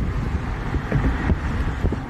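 Wind buffeting the microphone: an irregular low rumble.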